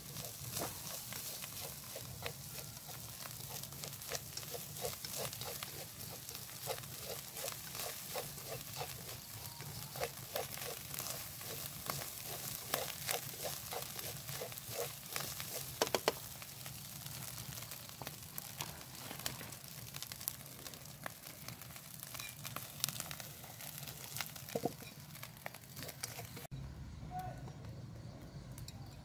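Open fire crackling and popping under rabbit meat roasting on a bamboo spit, over a steady hiss. From about 4 to 11 seconds in, an animal calls in short repeated notes, and the crackling stops shortly before the end.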